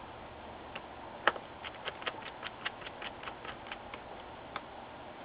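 Plastic front bezel of a Compaq C581WM laptop screen being pressed onto the lid, its clips snapping into place. There is one sharp click, then a quick run of about a dozen small clicks at around five a second, and one more click near the end.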